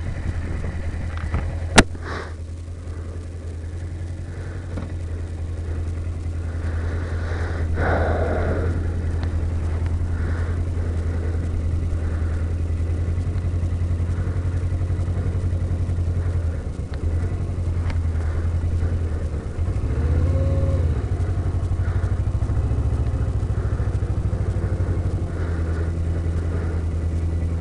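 Motorcycle engine running at low revs through a slow U-turn, heard from the rider's helmet. There is a sharp click about two seconds in and a brief rise and fall in the engine note about twenty seconds in.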